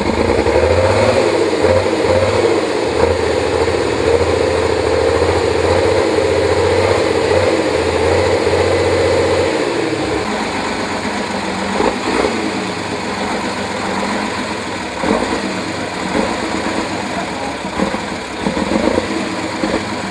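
Off-road trial prototype's engine held at high revs under load as it climbs a steep dirt bank, then dropping to a lower, quieter note about halfway through, with a few short throttle blips after that.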